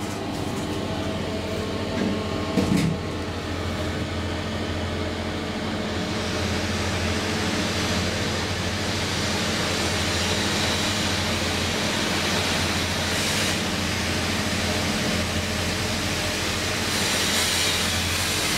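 Traction elevator cab travelling through its shaft: a steady low hum with an even rushing noise of the ride, growing louder about six seconds in as the car gets up to speed. A couple of short bumps about two to three seconds in as it sets off.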